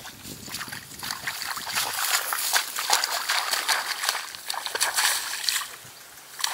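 Footsteps wading through shallow water and mud in a flooded rice paddy, with irregular splashing and sloshing that picks up about two seconds in and eases off near the end.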